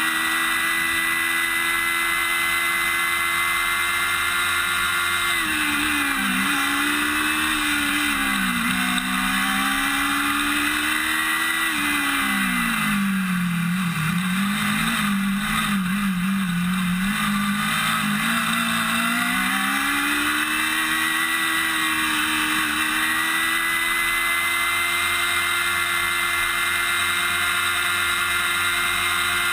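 Formula Student race car engine, heard close up from the roll bar: it runs at high revs, then drops in pitch in steps as the car slows for the corners. It wavers low through the tight turns around the middle, then climbs back and holds high revs as the car accelerates onto the next straight.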